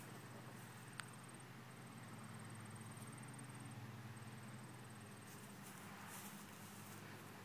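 Near silence: a faint steady low hum with light hiss, and one sharp click about a second in.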